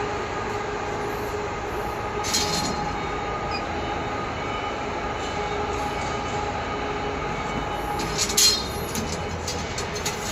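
CO2 laser cutting machine running with a steady mechanical hum, a few faint steady tones in it. A few brief clicks and knocks come about two seconds in and again around eight seconds in.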